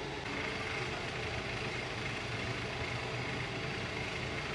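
Steady low machine hum over a constant hiss.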